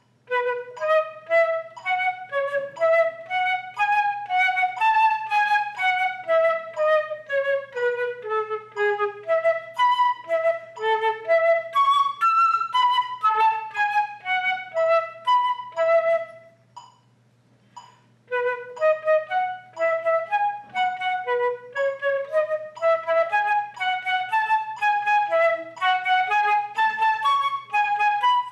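Solo flute playing an E major étude as a practice exercise. First comes the eighth-note skeleton of the melody, a steady run of separate notes climbing and falling. After a break of about two seconds the passage starts again in a rhythm of two sixteenths and an eighth.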